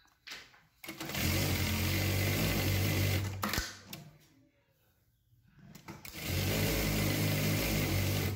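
Juki electronic single-needle industrial sewing machine stitching through fabric in two steady runs of about two and a half seconds each, stopping in between.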